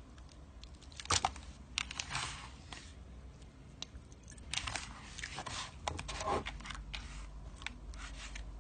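Hands squishing and poking jiggly water slime, making irregular small wet clicks and squelches.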